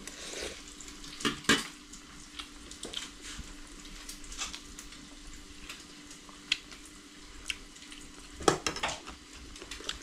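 An egg frying in oil with a steady sizzle, while metal utensils clink against dishes several times, loudest near the end.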